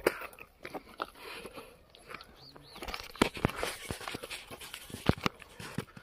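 Footsteps crunching and scraping on loose stones and gravel, with dry grass and brush rustling against the walkers. The sharp crunches come irregularly and are loudest about three to five seconds in.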